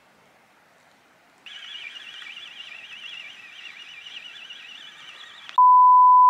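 Spinning reel being wound in, a faint wavering high whir lasting about four seconds. Near the end, a loud steady beep for under a second: a censor bleep.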